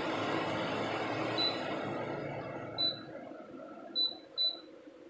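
Electric fans running with a steady whoosh of moving air and a low motor hum, the noise fading away from about two seconds in. Four short, high beeps sound over it.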